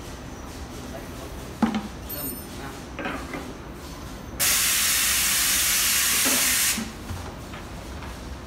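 Aerosol spray can hissing steadily for about two seconds as it is sprayed onto a cloth. Earlier there is a sharp knock and some lighter clatter from a plastic bucket being handled.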